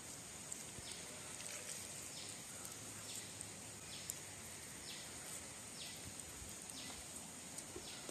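Faint outdoor background with a bird repeating a short, high call about once a second.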